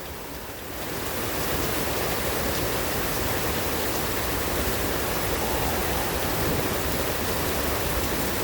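Heavy rain falling, a steady hiss that grows a little louder about a second in and then holds even.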